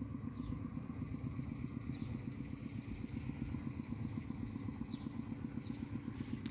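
A small engine running steadily nearby: a low, even rumble with a rapid flutter. A faint, thin, high steady tone sits above it and stops near the end.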